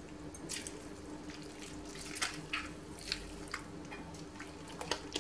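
Faint drips and wet squelches as soaked gelatin sheets are squeezed out by hand and dropped into warm strawberry purée, then stirred in with a silicone spatula. A faint steady hum runs underneath.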